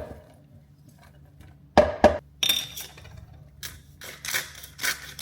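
Kitchen crockery and utensils clinking and knocking: a series of sharp clinks, one of them ringing briefly, during meal preparation.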